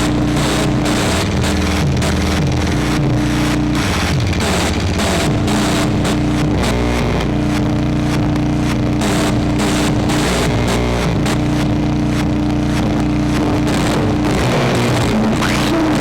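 Electronic drone-noise music from small synthesizers: a steady held tone over stepping and sliding low pitches, with dense crackling clicks throughout.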